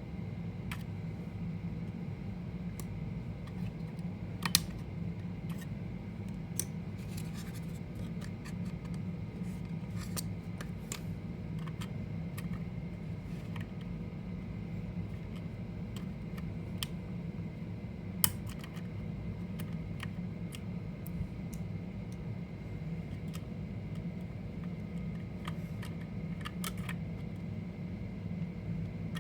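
Scattered small clicks and scrapes of hands working on the plastic and metal parts of a mini PC, with two sharper clicks, one about four seconds in and one near the middle. A steady low hum runs underneath.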